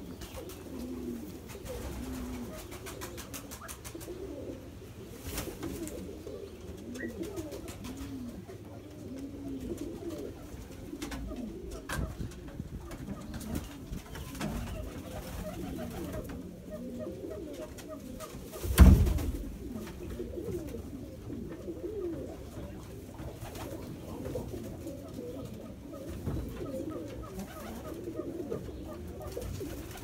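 Pigeons cooing over and over in low, overlapping rising-and-falling calls. About two-thirds of the way through, a single loud thump.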